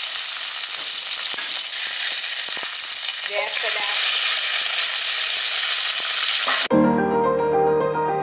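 Sliced shallots, ginger, garlic and curry leaves sizzling in hot oil in a pan, a steady hiss with a few light clicks from stirring. About six and a half seconds in, the sizzling cuts off suddenly and piano music begins.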